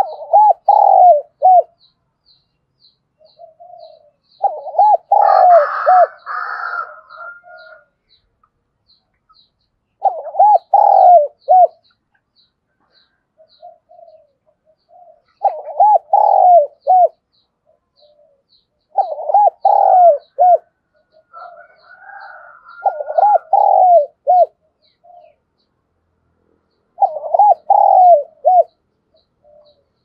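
Spotted dove cooing: seven short phrases of three or four low notes each, a few seconds apart. This is the song of a caged decoy bird, meant to provoke wild spotted doves into cooing back. A faint, rapid high ticking runs behind it, and a higher, rougher call overlaps two of the phrases.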